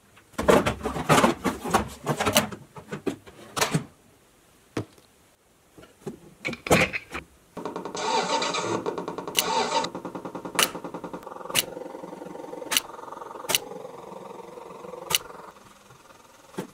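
Hard plastic parts of a children's ride-on electric fire truck clatter and knock as the seat is fitted. About eight seconds in, the toy's built-in engine-start sound effect plays through its small speaker, then settles into a steady recorded engine idle with a few sharp clicks.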